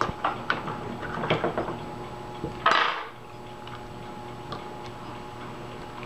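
A metal fork clicking and scraping against the cap of a new bottle of vanilla extract as it is pried open, with one louder scraping rasp just under three seconds in, then a few light clicks as the cap is worked off.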